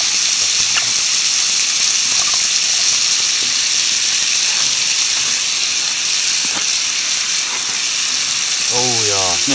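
Diced bacon sizzling in a small pot over a gas canister camping stove: a steady, loud frying hiss.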